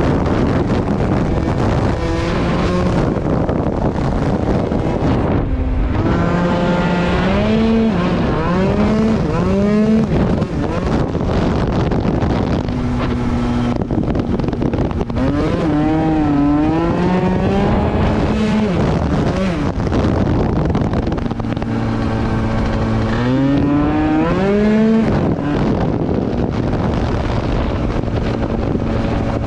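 Tuned two-stroke scooter engine, a 94cc Polini Big Evolution kit, running under way. Its pitch holds steady for stretches and sweeps up and down several times as the throttle is worked, with wind noise on the microphone.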